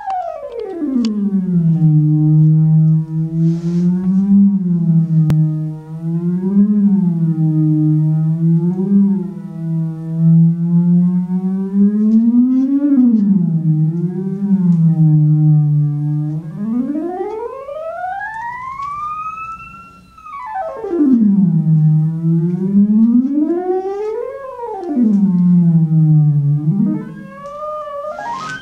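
Continuous synthesized tone rich in overtones, its pitch set by a single control parameter. It hovers low with small wobbles for about sixteen seconds, then sweeps steeply up and falls back, rises partway and drops again, and starts climbing again near the end.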